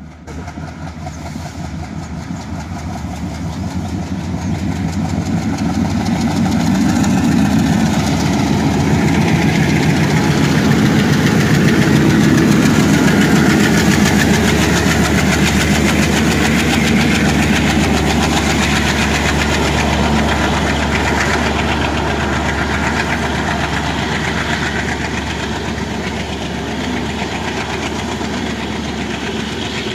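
A pair of diesel locomotives runs hard as it hauls an express train past. The engine sound grows louder and is loudest about twelve seconds in as the locomotives go by. It then eases a little as the coaches roll past on the rails.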